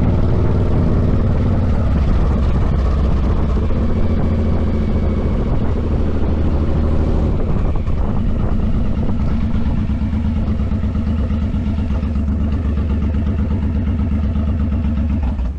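Vehicle engine running steadily under way, a low throbbing hum.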